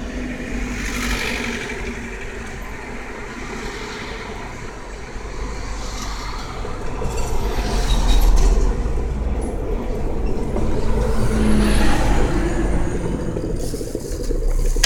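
Black & Decker electric kettle with its lid on, its water at a full boil: a steady rumbling hiss that swells louder at times.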